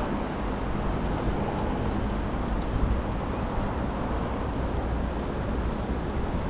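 Steady outdoor street ambience dominated by a low, even rumble of road traffic, with no single event standing out.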